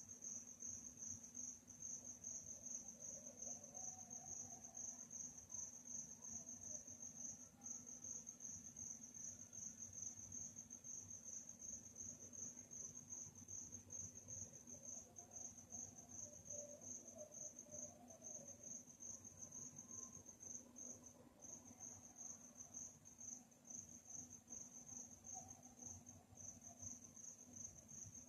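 Crickets chirping in a fast, even, high-pitched pulsing trill, faint and continuous apart from a couple of brief pauses.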